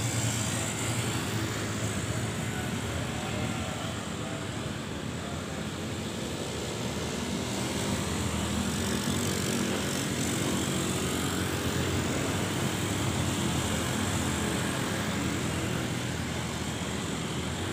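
Steady road traffic noise, with the drone of motorcycle engines passing.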